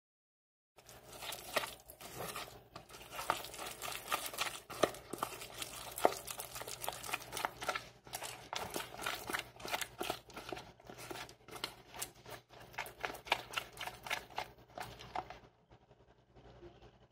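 Close handling noise: rapid crinkling and crackling with many small clicks, starting after about a second of dead silence and dying away near the end.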